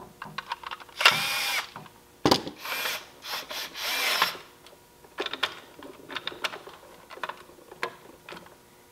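Small handheld electric screwdriver driving the terminal screws on a fire-alarm pull station's terminal block: two short runs of motor whine with a sharp click between them, then a run of light, irregular clicks.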